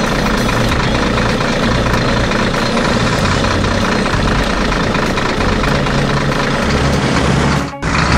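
Heavy machine engine running steadily under a dense grinding noise as a drilling head bores into rock. The sound breaks off for a moment near the end.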